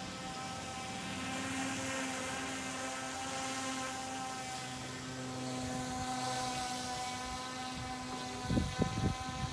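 RC airboat's motor and air propeller running at a steady pitch, swelling a little as the boat moves across the water. A few low thumps close together near the end.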